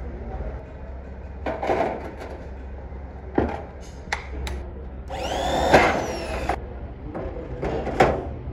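Electric drill spinning up and winding down with a whine that rises then falls, driving fasteners to fix cast-iron pan supports to a stainless steel gas stove top. Short metallic knocks and clatter come before and after it.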